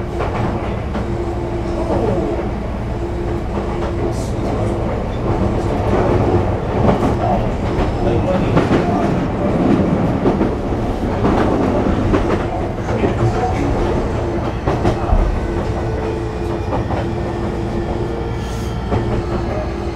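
Sotetsu 20000 series electric train running between stations, heard inside the passenger car. A steady low rumble of wheels on rail with clattering over rail joints, under a steady humming tone from the Hitachi hybrid SiC VVVF inverter and traction motors.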